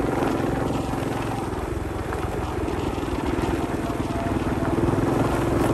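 Vehicle engine running steadily as it travels along, getting a little louder near the end.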